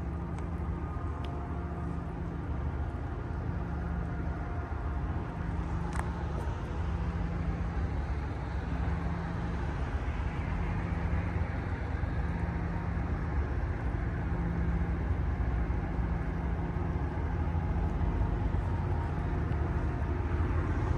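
Diesel-electric freight locomotives (an ET44AH, SD70M and AC44CW) approaching from a distance: a low engine rumble that slowly grows louder.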